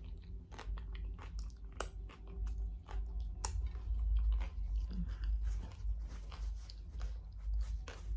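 Close-up chewing of a crunchy fried corn tostada shell, with many sharp, crisp crunches coming in quick irregular succession.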